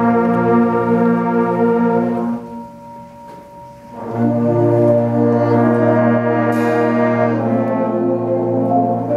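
School concert band playing slow, sustained brass-led chords. The sound falls away to a soft lull with a single held note about two and a half seconds in, then the full band comes back in at about four seconds and holds a long chord.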